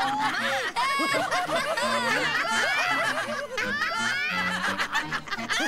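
A crowd of animated characters laughing and snickering together, several voices at once, jeering at the ordinary-nosed outsiders. Soft music with steady low notes plays underneath.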